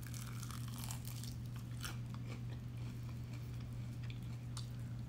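Biting into and chewing crispy fried chicken, with scattered crunches of the fried breading. A steady low hum runs underneath.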